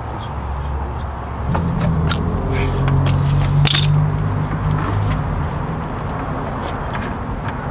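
Light metallic clicks and clanks as a ball-joint press tool is handled and fitted onto a tie rod end's ball joint. Underneath runs a low, steady mechanical hum that grows louder from about a second and a half in and eases off after about five seconds.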